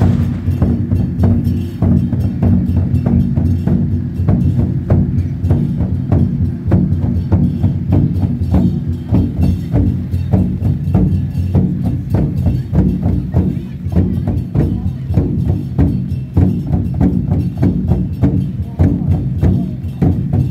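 Drums on a row of procession drum carts being beaten together in a quick, steady rhythm, with sharp clacking strikes over a continuous low drum rumble.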